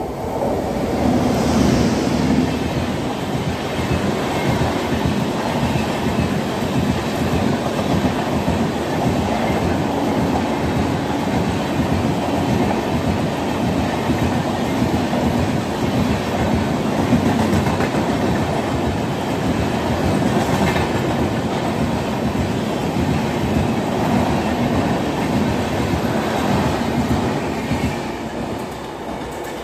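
Express passenger train behind a WAP-7 electric locomotive passing close at full speed. It is a steady rush with wheels clattering over the rails, swelling as the locomotive arrives and fading near the end as the last coaches go by.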